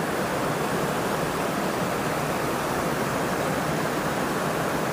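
Steady, unbroken rush of water flowing at a canal lock.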